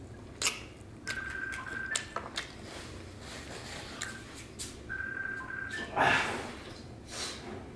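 A phone ringing: a steady electronic ring tone, each ring held just under a second and rising slightly in pitch at its end, sounds twice, three to four seconds apart. Scattered clicks and a short loud scuffing noise come about six seconds in.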